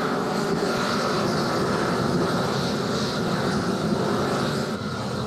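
Propane roofing torches burning with a steady rushing noise while bitumen membrane is torched down, easing off slightly near the end.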